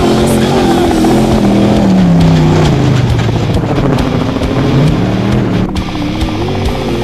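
Desert race truck engines running hard at speed. The engine pitch falls away from about two seconds in and climbs again near five seconds, with background music underneath.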